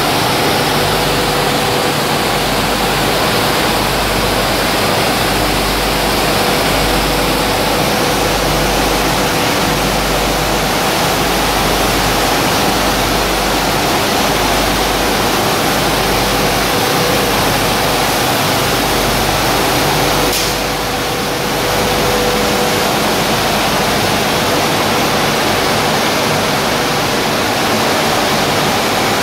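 Roller flour milling plant running: a loud, steady rushing noise of air and machinery with a faint steady hum underneath. The level dips briefly about two-thirds of the way through.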